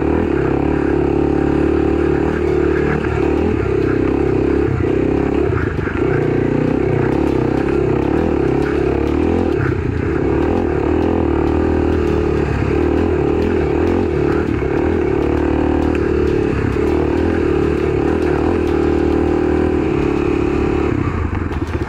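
Kawasaki KLX300's single-cylinder four-stroke engine running steadily under way, with some clatter; the engine note eases off near the end.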